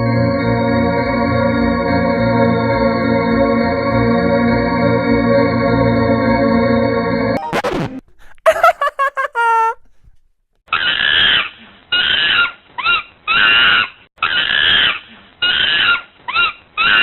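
Added comedy sound effects. An organ holds a chord for about seven seconds and cuts off. A quick falling glide follows. Then comes a run of about nine short cries that bend in pitch.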